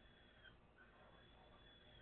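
Near silence: faint background with a thin, steady high tone.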